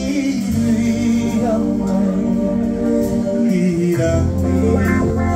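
A live band playing a slow song, with a sung melody over held keyboard chords and electric guitar. Low bass notes change about half a second in and again near four seconds.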